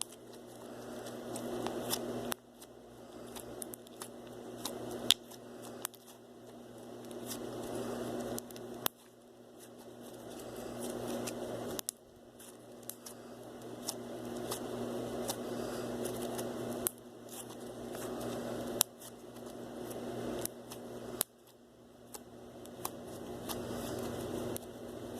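Slime being worked by hand, squelching with many sharp clicks and pops. It comes in stretches of a few seconds that build up and then cut off abruptly, over a steady low hum.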